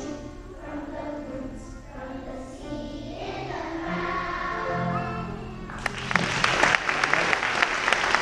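Kindergarten children singing together as a choir; the song ends about six seconds in and the audience breaks into applause.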